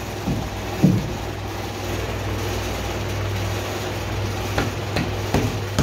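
A steady low machine hum throughout, with a few short metal knocks and clinks as a spanner and fittings are worked on a cast-iron piston water pump, most of them in the last second and a half.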